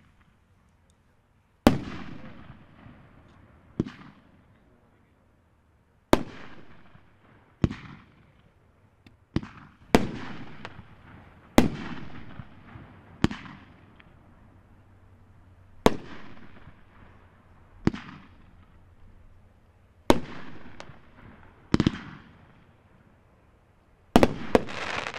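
Dominator 'Bragging Rights' 500-gram fireworks cake firing, one sharp bang with a rolling echo every second or two, about a dozen in all. Near the end a louder, denser cluster of bangs with crackle and hiss closes the sequence.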